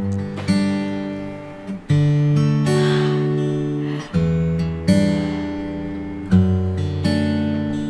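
Background music: strummed acoustic guitar chords, a new chord struck every second or so.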